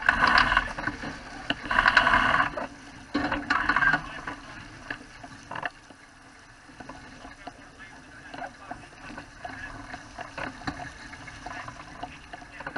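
Water rushing and splashing against the hull of a Wayfarer sailing dinghy under way, in three loud surges over the first four seconds. After that it settles into a lower hiss with small scattered knocks and clicks.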